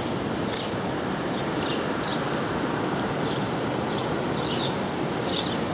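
Steady rush of the flooded South Platte River's fast-moving water. Over it a bird calls in short, high chirps several times, the loudest near the end.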